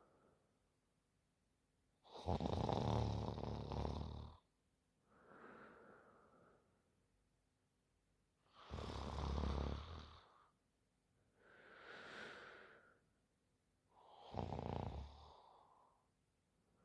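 A sleeping woman snoring: three loud snores about six seconds apart, each followed by a softer breath.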